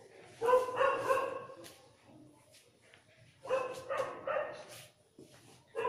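A dog barking in two short runs of barks, one about half a second in and the other about three and a half seconds in.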